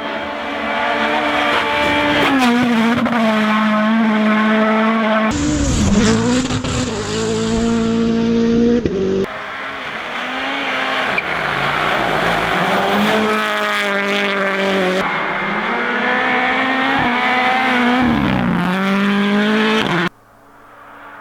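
Rally1 rally cars' turbocharged four-cylinder engines at racing speed, revving up and dropping in pitch through gear changes over several passes cut one after another. Near the end the sound cuts suddenly to a much quieter, steady engine note.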